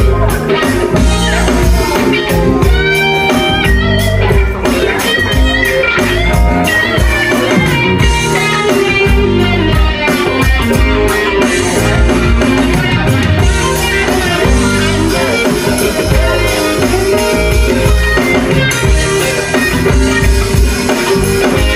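A live band playing dance music, led by electric guitar over drum kit and keyboard, with a steady beat.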